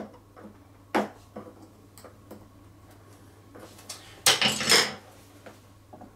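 Hand tools and plastic parts being handled: a few sharp clicks of a screwdriver against a plastic plug on the pressure washer's housing, then a longer clatter of metal hand tools being picked up off a tiled floor a little after four seconds in.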